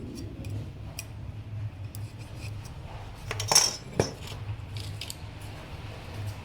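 Light metal clinks and taps as steel parts are handled and set down, with two louder sharp clinks about halfway through, over a faint low hum.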